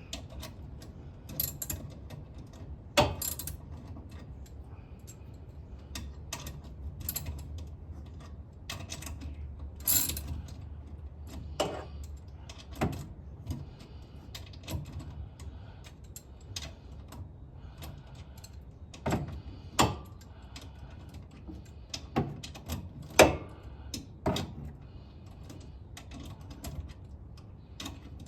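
Hand tools working on the alternator's mounting bolts: irregular metallic clicks and knocks, a few of them sharper and louder, over a low steady hum.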